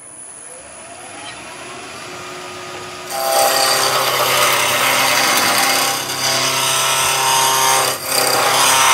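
Wood lathe spinning up, its pitch rising over the first few seconds. About three seconds in, a skew chisel starts roughing down the spinning tulipwood blank: a loud, continuous cutting noise of shavings tearing off, with brief dips as the tool is moved forward and back along the work.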